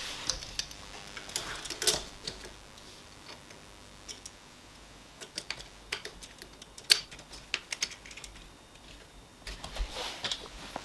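Small metal parts clicking and tapping irregularly as slot nuts, screws and a T-plate are fiddled into place on the printer frame, with clusters of quick clicks about two seconds in, between five and eight seconds, and near the end.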